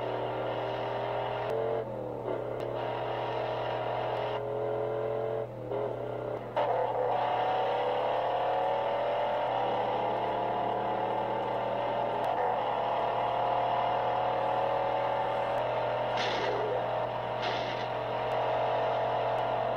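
Film car-chase soundtrack heard through a TV speaker: V8 muscle-car engines (a Dodge Charger and a Mustang fastback) revving hard. The pitch climbs and drops through several gear shifts in the first seven seconds, then holds a long, slowly rising high-rev run, with a steady low hum underneath.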